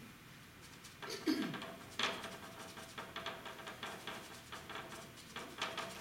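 Paintbrush scrubbing and dabbing acrylic paint onto a painting surface: quick, dry, scratchy strokes, several a second, from about two seconds in. About a second in comes a brief low sound that falls in pitch.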